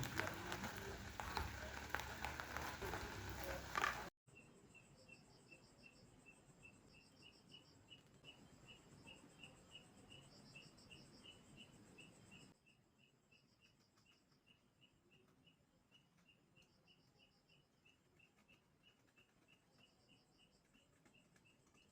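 Food frying and sizzling in a pan for about the first four seconds, then a sudden cut to a quiet night insect chorus. Crickets chirp evenly a few times a second, with short higher trills coming every few seconds.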